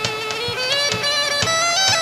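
Background music: a reedy wind-instrument melody, held and ornamented, over a regular drum beat.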